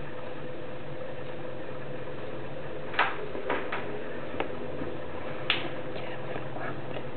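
Steady hum with a few short clicks and knocks, the two sharpest about three seconds and five and a half seconds in: small handling noises as newborn puppies are stroked and moved in a bedding-lined box.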